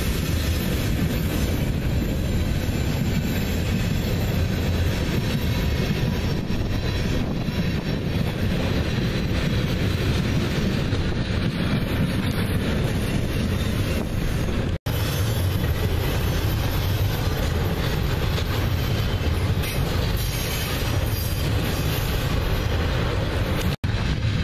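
A CSX freight train of tank cars, flatcars and double-stack container cars rolling past close by: a loud, steady, deep rumble of steel wheels on the rails. It breaks off twice for a split second.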